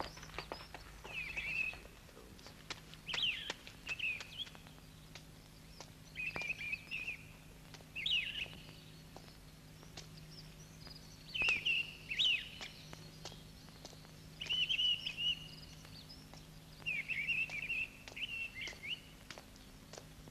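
Birdsong: a bird repeats short, quickly warbling chirp phrases every two to three seconds, with a steady low hum underneath.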